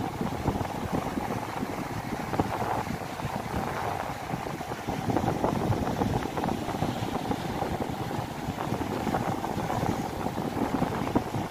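Wind buffeting the microphone, steady and gusty, over the wash of sea surf breaking on a rocky shoreline.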